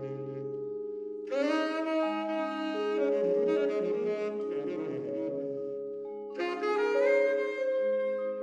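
Saxophone and vibraphone duet. Vibraphone chords ring on while the saxophone plays long held melody notes, entering about a second in and again near the end.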